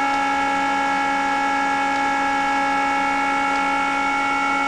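Cooling fan of an NJT Ku-band satellite amplifier (BUC) running steadily at full airflow: a constant whir with several steady whining tones.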